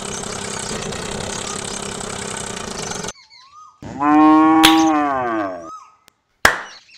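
A cow mooing once: one long call that holds its pitch and then slides down. Before it, a steady engine-like running noise cuts off suddenly about three seconds in, and a few faint bird chirps sound just before and after the moo.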